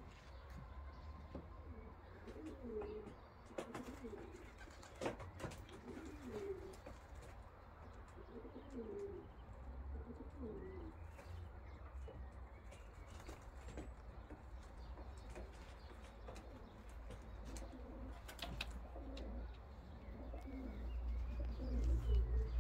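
Racing pigeons cooing over and over, low rolling calls every second or two. A low wind rumble on the microphone runs underneath and grows louder near the end.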